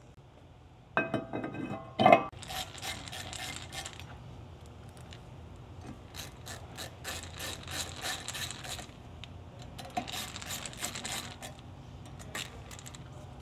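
A ringing metal clink and a loud clank as the steel brake rotor is set onto the rear hub, then a hand ratchet clicking in several runs of rapid clicks as the rotor retaining screw is driven in.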